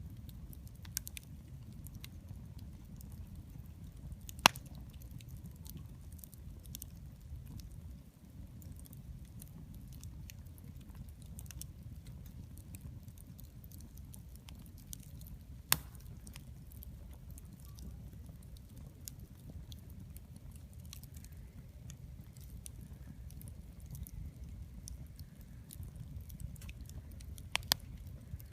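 Wood bonfire crackling: a steady scatter of small clicks over a low rumble. There are a few sharp, loud pops, one about four seconds in, one about halfway, and a quick double pop near the end.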